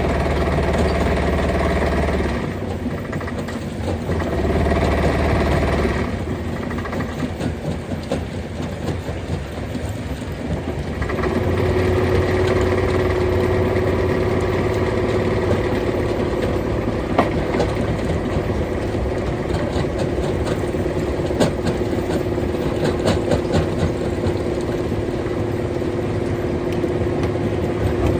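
Heavy stone-crushing machinery running steadily, its character changing abruptly a few times. In the second half a steady engine tone carries scattered sharp knocks.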